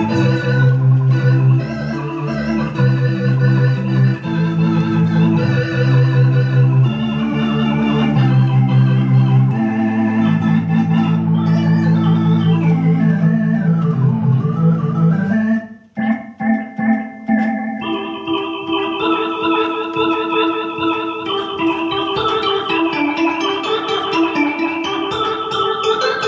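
Soviet Elektronika EM-141 (Venta) electronic organ being played: held chords over a strong bass line. A little past the middle the sound drops out briefly, then returns as a brighter, higher chord passage with a wavering, Leslie-like chorus.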